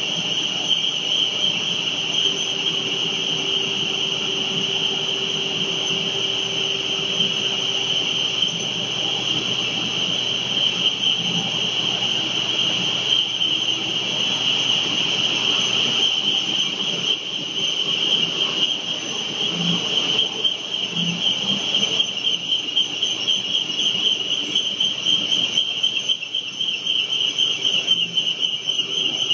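Double twist copper wire bunching machines running at speed: a steady, loud high-pitched whine with a fine fluttering texture, over a fainter low motor hum.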